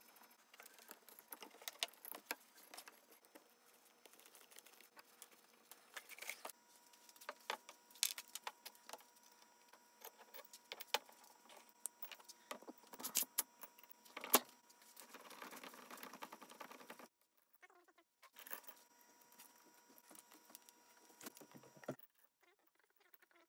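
Scattered light metallic clicks, clinks and taps of small metal parts and tools being handled, with a few seconds of scraping or rustling about two-thirds of the way through.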